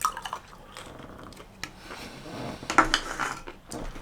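Cutlery clinking and scraping against a plate during eating. A few sharp clicks come right at the start, and a louder run of clatter comes near the end.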